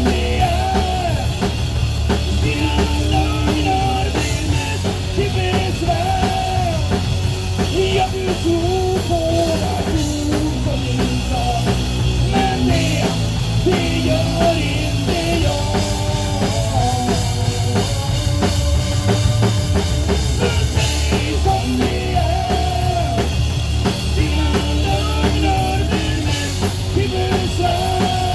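A rock band playing: a full drum kit and bass under a melody line.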